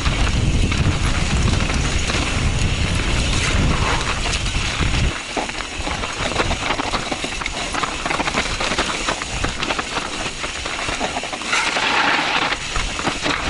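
Intense Tracer mountain bike descending rocky singletrack: tyres crunching over loose dirt and stones with the bike rattling over the bumps, under heavy wind rumble on the microphone that drops away about five seconds in.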